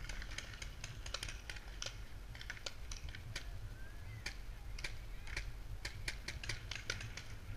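Paintball markers firing: sharp pops in quick, irregular volleys, several a second, over a steady low rumble.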